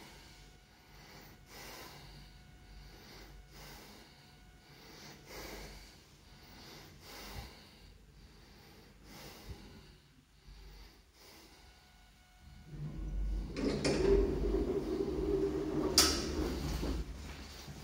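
A passenger lift arriving at the landing: faint knocks at first, then from about 12 seconds in a loud, steady low hum with a few held tones as the car comes in and its sliding doors open, with a sharp clunk about 16 seconds in.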